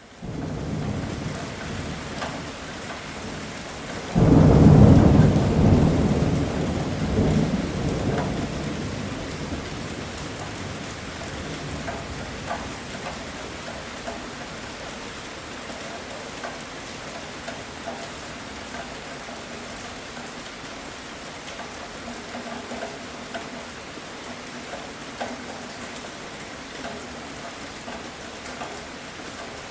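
Heavy rain falling steadily, with a loud clap of thunder about four seconds in that rumbles away over several seconds.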